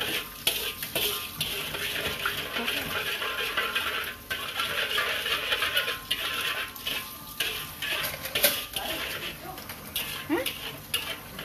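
Metal spatula stirring, scraping and knocking against a large metal wok, with sugar syrup bubbling and sizzling in the pan.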